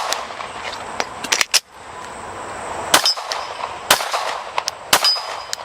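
Pistol shots about a second apart during a reload drill, with a steel target ringing after two of them. A little over a second in comes a quick cluster of clicks and clatter from a magazine change.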